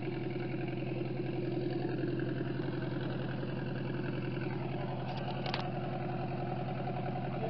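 Farm tractor engine idling steadily with an even firing beat. A brief higher-pitched sound comes about five seconds in.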